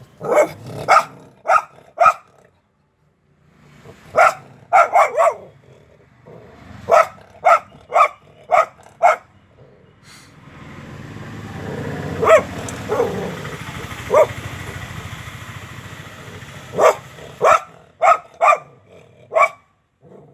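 A dog barking in quick bursts of four or five sharp barks, the bursts a few seconds apart. In the middle, a longer stretch of rumbling noise swells and fades, with a few short yelps over it.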